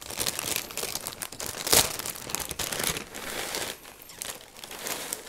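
Plastic zip-top bag full of Fruity Pebbles cereal crinkling and rustling as it is handled and tipped, with one louder crackle nearly two seconds in.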